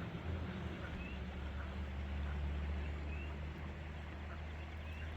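Ducks on a river calling faintly in short, scattered calls over a steady low rumble.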